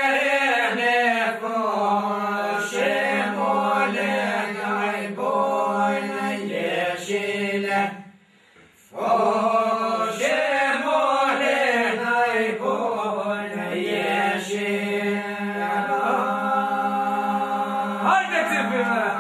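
Men singing northern Albanian two-part polyphony: one voice carries an ornamented melody over a steady drone held by the others. The singing breaks off for about a second roughly eight seconds in, then starts again.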